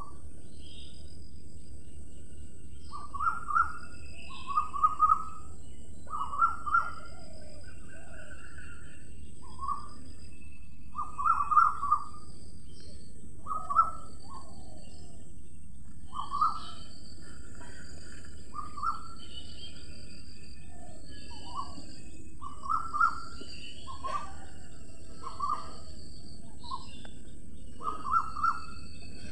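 Birds calling: short, clear chirps, often in twos or threes, repeating every second or two, over a steady faint hiss.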